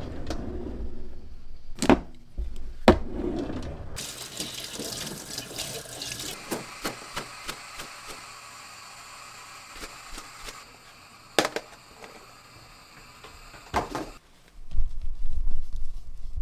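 Water running from a kitchen tap into the sink for several seconds, starting about four seconds in, with a few sharp knocks before and after it.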